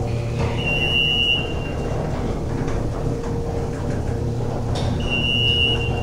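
US Elevator in-ground hydraulic elevator car rising, with a steady low hum and rumble from the ride. Two short high-pitched beeps sound about four seconds apart.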